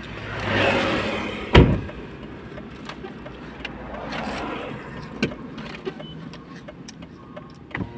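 A motorbike passing close by, its engine and tyre noise swelling and fading over the first second and a half, then a single sharp knock. A fainter swell of passing-vehicle noise follows a few seconds later, with a few scattered clicks.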